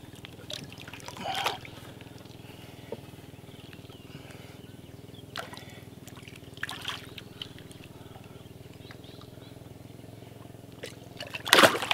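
Water sloshing and splashing as a giant snakehead is held at the surface and released beside a wooden boat, with a louder splash near the end. A steady low hum runs underneath.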